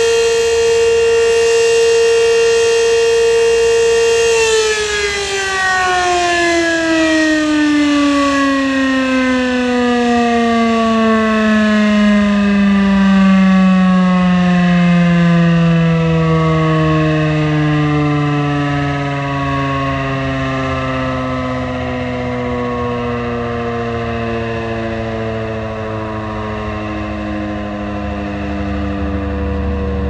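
Rooftop outdoor warning siren sounding its daily noon test. It holds a steady wail for about four seconds, then winds down in a long, slow falling glide, still sounding low at the end.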